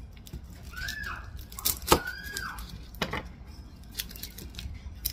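Knife knocking on a cutting board while slicing onions: a few sharp knocks about a second apart, the loudest about two seconds in. Twice, a short high-pitched voice sound rises and falls.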